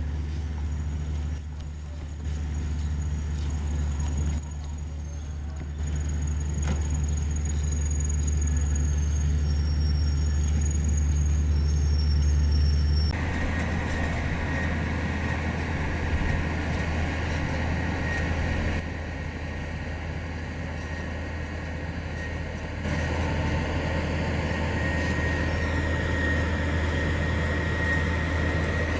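Heavy diesel engine of a Komatsu GD555 motor grader running steadily with a low hum. About halfway through the sound shifts abruptly to a louder, noisier working sound with a thin whine on top.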